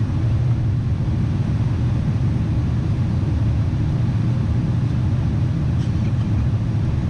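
Boeing 747 cabin noise heard from a window seat over the wing while the jet climbs after takeoff: a steady low rumble of the engines and rushing air, with no change in level.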